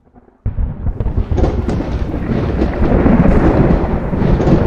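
Intro sound effect of thunder-like rumbling, with scattered crackles on top. It starts suddenly about half a second in and stays loud and dense.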